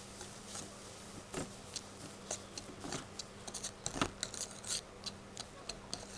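Flour being sifted through a hand sieve: irregular light taps and rattles of the sieve as it is knocked and shaken, with a faint steady hum underneath.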